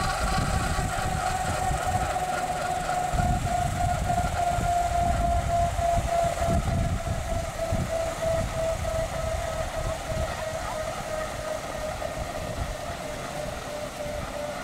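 Fairchild-Hiller FH1100 helicopter's Allison 250 turboshaft winding down during engine shutdown: a whine that slowly falls in pitch as the rotors slow, over an uneven low rumble.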